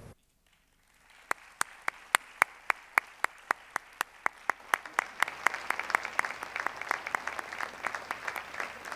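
Starting about a second in, one person clapping close to a microphone in a steady rhythm of sharp claps, a little over three a second. From about halfway through, applause from a small audience joins and grows beneath the claps.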